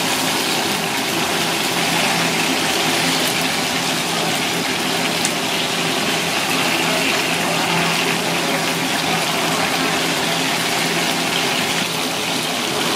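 Grouper fillet frying in hot oil in a nonstick pan: steady, even sizzling, with a faint low hum underneath.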